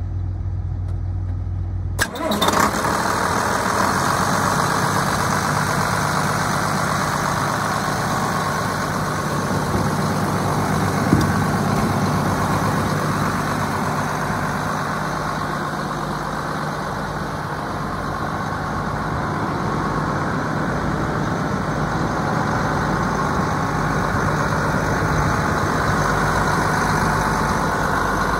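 Case IH 7120 Magnum tractor's turbocharged six-cylinder diesel idling steadily. About two seconds in there is a click and the sound turns suddenly fuller, and one short knock comes about halfway through.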